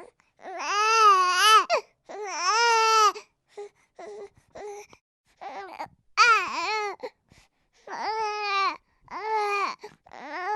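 Baby crying: a run of wails about a second long each, separated by short pauses with small catching sobs in between.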